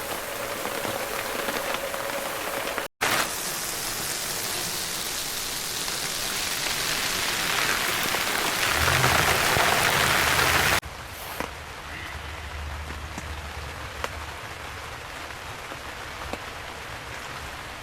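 Steady rain falling on the fabric of an inflatable tent, heard from inside. The sound drops out for an instant about three seconds in. A louder hiss then builds and cuts off abruptly about eleven seconds in, leaving quieter rain.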